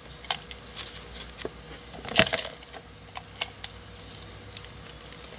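Folded paper slips rustling and crinkling as a hand rummages in a clear plastic jar, draws one out and unfolds it, with light clicks and taps; the loudest crackle comes about two seconds in.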